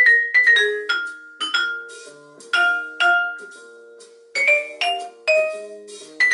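Vibraphone played with mallets: a quick run of struck metal bars whose notes ring on, thinning to a few long sustained tones in the middle before quicker strikes pick up again.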